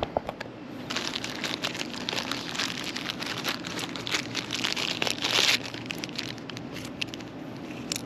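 Handling noise around a new aluminium condenser fan blade: crinkling and scattered light clicks, loudest about five seconds in, over a steady low hum.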